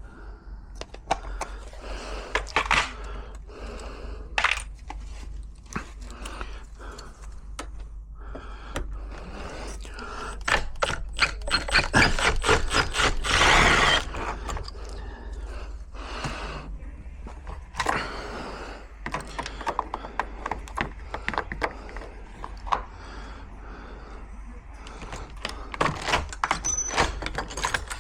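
A broken door lock mechanism being worked on by hand: irregular clicks, knocks and rattles of lock parts and tools, with a denser stretch of rapid rattling about eleven to fourteen seconds in.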